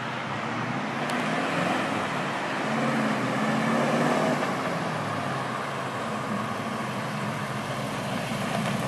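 1957 Chevrolet pickup truck's engine running as it drives closer, over road and traffic hum. The engine note swells about halfway through, eases, then grows louder again near the end as the truck nears.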